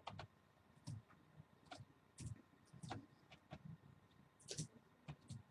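Faint, scattered clicks and short rustles of football trading cards and packs being handled.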